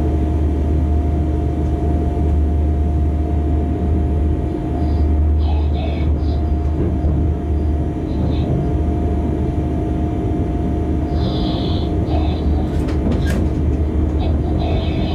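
Locomotive running along the track, heard from inside its cab: a steady low drone with a constant hum and rolling rail noise. There are a few brief high hisses, and a couple of sharp clicks near the end as the wheels run over points.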